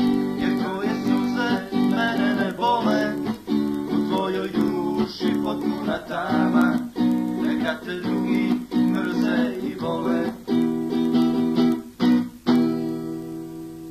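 Strummed guitar chords playing a song's instrumental ending, with no singing; near the end a final chord is left ringing and fades away.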